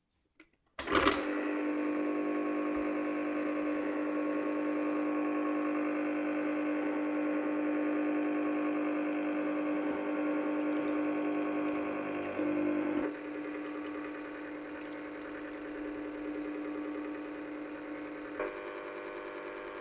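Krups Perfect Mix 9000 ice cream maker switching on about a second in, its electric motor then running with a steady hum as it turns the paddle in the freezer bowl. The hum becomes quieter about two-thirds of the way through.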